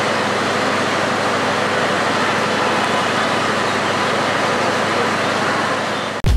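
Steady outdoor din of road traffic and a departing diesel-hauled passenger train, even in level throughout. It cuts off abruptly near the end, giving way to a thud.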